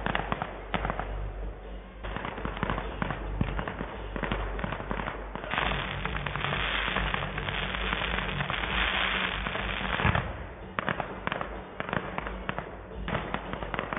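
Fireworks going off: a quick run of sharp pops and bangs, swelling into a dense stretch of continuous crackling in the middle, then scattered pops near the end.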